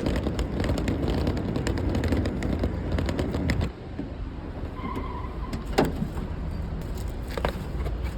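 Car running with low road rumble, with scattered clicks and knocks; the sound drops and changes abruptly a little under four seconds in.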